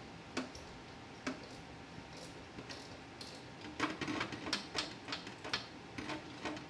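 Irregular sharp metallic clicks and taps from a tool working on the turbo downpipe's band clamp: two single clicks, then a quick run of them over the last few seconds.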